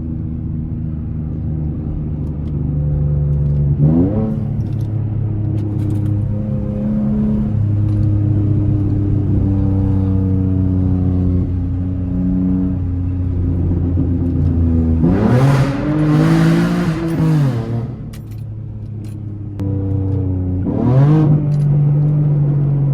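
V6 car engine with aftermarket headers, exhaust droning while driving. It revs up about four seconds in, gives a loud, rasping rev that rises and falls about two-thirds of the way through, and revs up again near the end.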